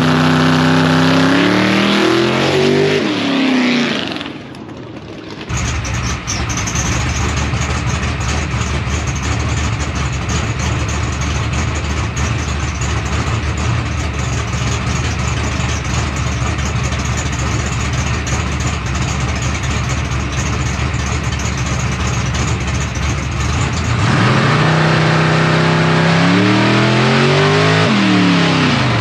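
Big-block V8 engine of a drag-race Camaro revving up in rising pitch. It drops away briefly, then runs steadily for most of the stretch, and revs up again in rising, shifting pitch near the end.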